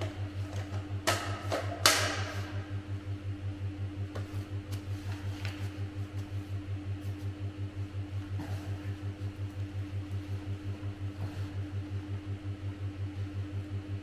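A steady low mechanical hum, throbbing a few times a second. Two sharp knocks about one and two seconds in, the second the louder with a short ring, as the prone shooter settles in behind the rifle.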